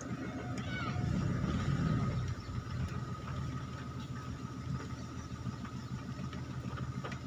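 An engine idling with a steady low rumble, swelling a little about a second in and settling back after about two seconds.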